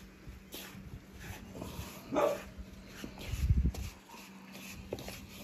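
A dog gives one short, sharp bark about two seconds in. About a second later come a few dull low thuds of handling at the kitchen counter.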